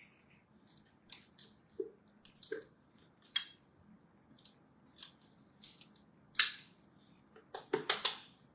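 Spatula scraping whipped cream out of a stainless-steel Thermomix mixing bowl: scattered short scrapes and taps, the loudest about six and a half seconds in and a quick cluster near the end.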